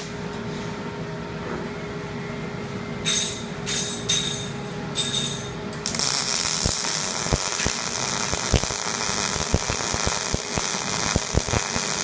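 A steady low hum with three short bursts carrying a high whine, then, about halfway through, a welding arc starts and runs: a loud, steady hiss with irregular crackles and pops.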